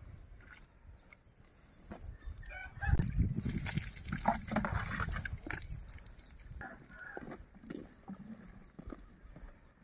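Water splashing and sloshing as a plastic scoop is dipped into a bucket and poured out, loudest for a couple of seconds near the middle.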